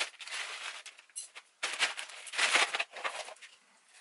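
Crinkly tea packaging rustling and crackling in several short bursts as it is handled and opened.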